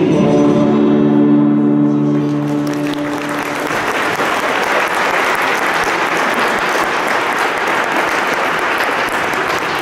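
Recorded music ends on a held final chord about three seconds in, and audience applause rises over it and carries on.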